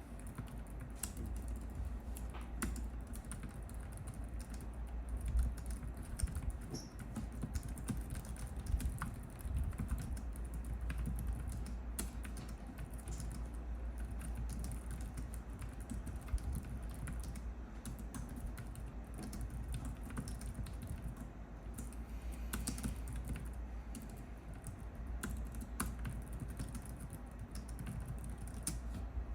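Continuous typing on a Logitech K380 wireless keyboard: a dense run of light key clicks, with a few louder strokes standing out here and there.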